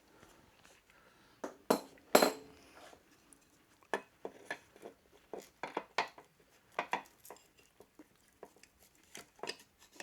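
Irregular metallic clinks and knocks of parts and tools being handled and fitted on a motorcycle engine, the two loudest about two seconds in.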